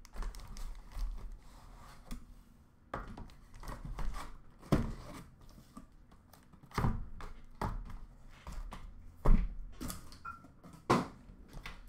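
Cardboard handling: the flaps of a cardboard shipping case rustling as it is opened, and sealed hobby boxes being lifted out and set down in a stack, with about six sharp knocks as they land, the loudest near the end.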